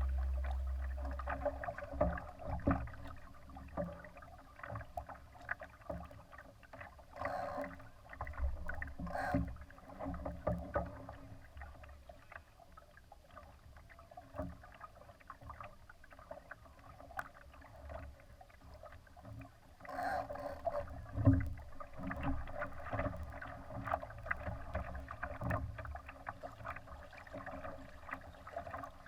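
Water splashing and lapping against the hull of a Laser sailing dinghy under way, in irregular crackly splashes with a low rumble underneath. The splashing is busier in two stretches, about a quarter of the way in and again from about two-thirds in, with one louder knock.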